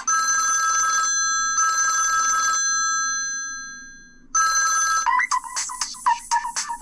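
Samsung Vibrant ringtone playing through the phone's speaker: a bell-like ring sounds three times with short gaps, the second ring fading out slowly. About five seconds in, a busier pattern of quick clicking and chirping notes starts.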